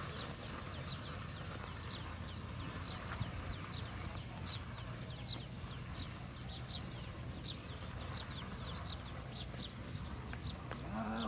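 A bird calling in a rapid run of short, high chirps, each falling in pitch, two to three a second, growing more regular toward the end, over a low rumble.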